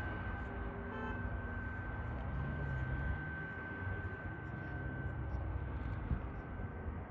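Jet airliner's engines running at low thrust while it taxis: a steady high whine over a low rumble.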